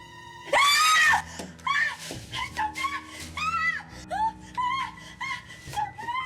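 A high-pitched voice screaming: one loud scream about half a second in, then a string of short cries that rise and fall in pitch, over sustained background music.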